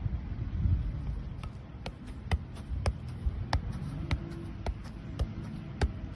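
A football being juggled, about nine sharp touches of the ball at roughly half-second intervals over a steady low rumble, ending when the ball is caught near the end.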